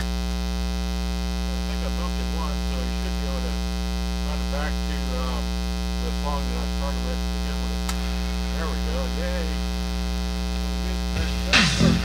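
Steady 60 Hz mains hum with a buzzy ladder of harmonics, induced into the recording by a ground loop from powering the camera off an AC adapter. Faint wavering tones sit underneath, and louder music cuts in near the end.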